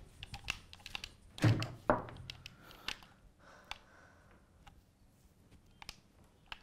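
Rapid plastic clicks of video-game controller buttons being pressed, with two dull thunks about one and a half and two seconds in.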